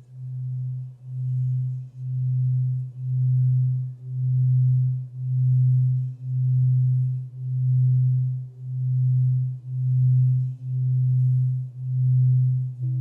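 Alchemy crystal singing bowl tuned to the root chakra, played around the rim so it sings one steady, pure low tone that swells and fades about once a second.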